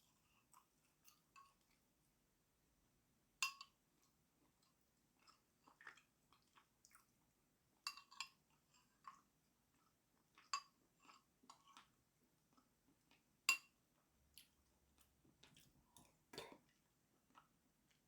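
Quiet eating sounds: faint chewing with scattered light clinks of a spoon against a bowl, four of them a little louder and a few seconds apart.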